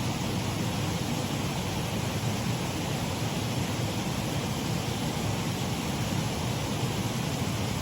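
Shallow waterfall on a stream: water running and splashing over the drop in a steady, even rush.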